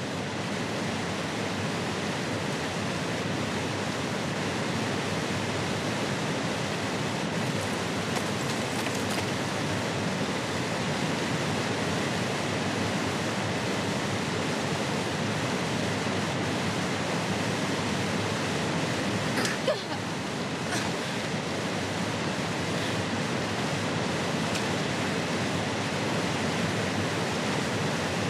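Steady rush of a fast-flowing river, an even wash of water noise, with one brief sharp click about two-thirds of the way in.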